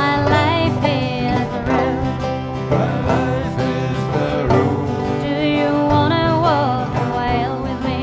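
Background music: a country-style song with plucked guitar and a wavering melody line over it.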